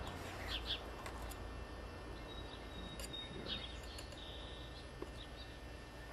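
Faint bird chirps: a few short, high calls and one brief held note, over steady background noise.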